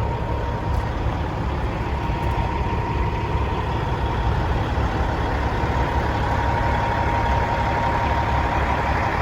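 Caterpillar 3406E inline-six diesel in a Kenworth W900L truck idling steadily, a low even rumble with a thin steady tone above it.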